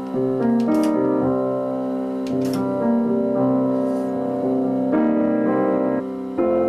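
Solo piano music: held chords that change every second or so, with the occasional sharper struck note.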